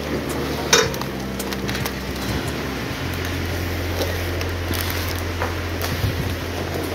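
A sliding bolt on a metal gate is drawn with a sharp metallic clack about a second in. Scattered clicks and knocks from the gate and footsteps follow, over a steady low hum.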